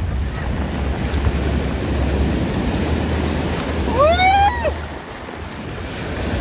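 Steady rushing outdoor noise with a low rumble from wind buffeting the microphone; the rumble drops out for a moment near the end. About four seconds in, one short vocal sound rises and then falls in pitch over it.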